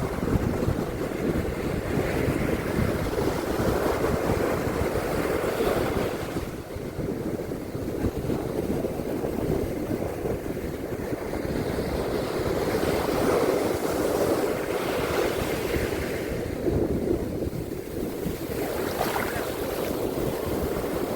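Ocean surf washing onto a beach, a continuous rushing that swells every few seconds as waves break, with wind buffeting the microphone as a low rumble.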